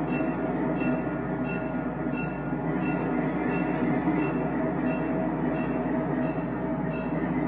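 Recorded diesel locomotive sound from the speaker in a G-scale model train's sound-equipped boxcar: a steady diesel engine rumble running as the train moves, with a light tick repeating about one and a half times a second.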